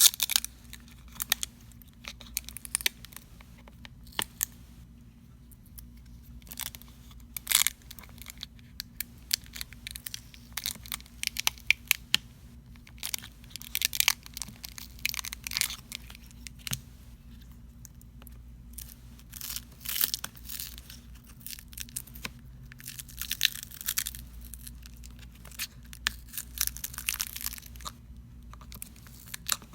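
Thick adhesive tape under a smartphone battery tearing and crackling in irregular bursts as the battery is slowly pried off.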